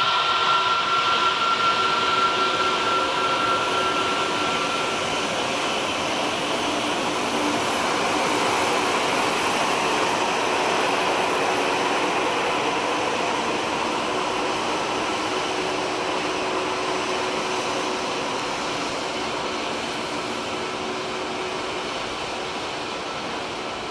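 Jet engines of an Airbus A321neo running at taxi power: a steady roar and hiss. A high whine fades out in the first few seconds, and the noise slowly dies away toward the end.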